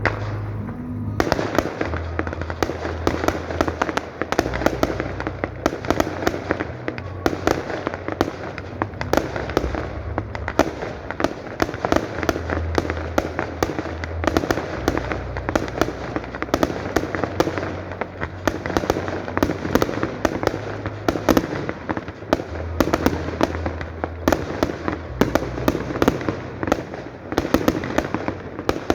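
Fireworks display in a rapid, continuous barrage of cracks and bangs, with no pause between shots from about a second in.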